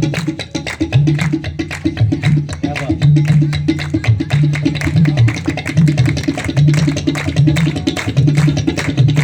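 Solo tabla played in a fast, steady rhythm: crisp strokes on the small right-hand drum over deep, booming notes from the left-hand bass drum.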